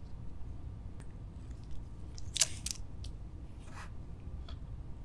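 A few short, quiet scrapes and clicks of a small plastic bottle of iron filings being handled and tipped over a measuring spoon, with a quick cluster of them about halfway through.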